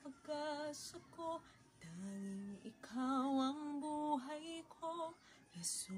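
A woman singing a slow Tagalog Christian worship song, in short phrases of held notes with brief pauses between them.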